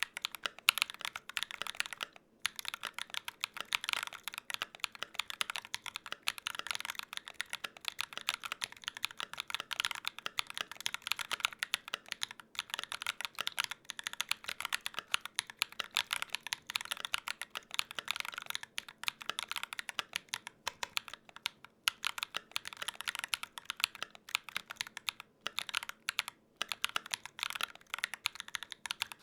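Fast, steady typing on a Gok 7V custom 75% mechanical keyboard with lubed tactile switches, a dense run of key clicks broken by a few brief pauses.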